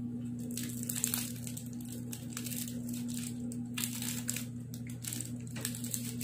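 Crinkling of a foil-lined chocolate bar wrapper being peeled and folded back by hand, in irregular bunches of crackles, over a steady low hum.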